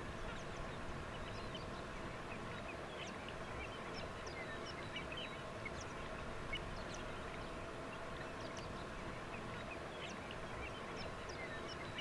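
A large flock of waterfowl calling, many birds at once: a steady wash of overlapping calls with short, sharper high calls dotted all through it.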